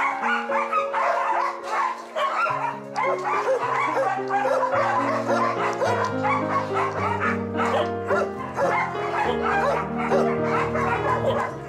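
Background music with slow, sustained chords over many short, high dog yips and whimpers.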